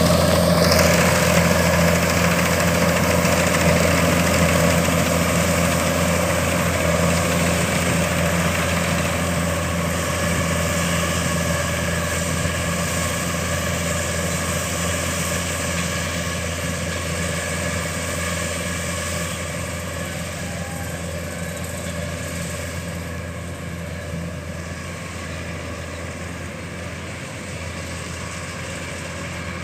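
Kubota DC-105X rice combine harvester running steadily, its diesel engine and threshing machinery working as it cuts rice. The sound fades gradually as the machine moves away.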